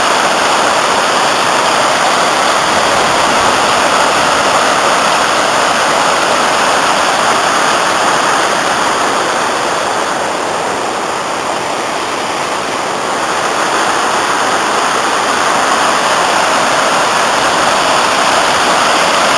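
Upper falls of the Afon Cwm Nantcol in spate after heavy rain: a loud, steady rush of falling water heard close up.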